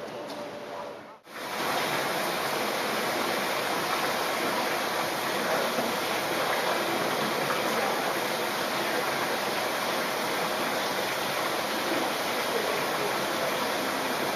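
Steady rushing of circulating water in an axolotl aquarium tank, starting abruptly about a second in.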